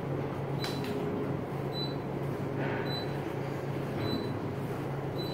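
Kone elevator car in motion: a steady low hum of the ride, with faint short high beeps about once a second.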